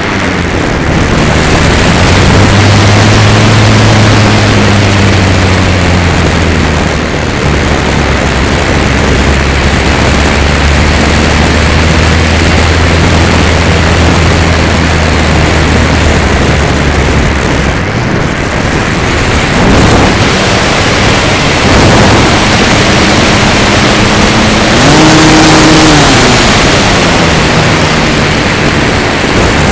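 Loud wind noise on a microphone riding on an E-flite Carbon-Z Cessna 150 RC plane in flight, under the hum of its electric motor and propeller. The hum's pitch rises and falls with the throttle, going up briefly about twenty-five seconds in.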